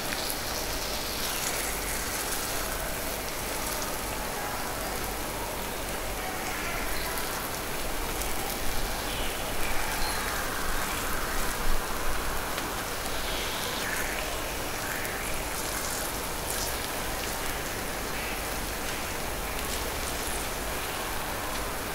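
Takoyaki batter sizzling steadily in the Teflon moulds of a Maksindo MKS-711B gas takoyaki machine while the balls are turned with bamboo skewers. A few louder clicks and scrapes of the skewers against the pan come near the middle.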